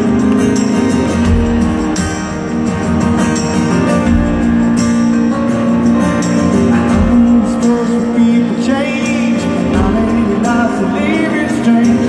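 Live rock band playing through a stadium PA, heard from within the crowd: guitar over drums and cymbals in a loud, steady song intro.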